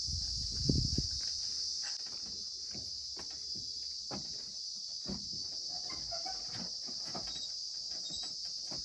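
Insects chirring in a steady, high-pitched drone, with a few dull low thumps in the first second.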